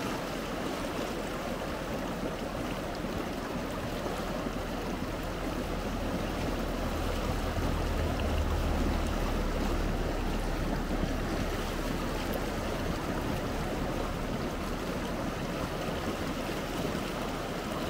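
Steady rushing of a river flowing, swelling slightly in the middle.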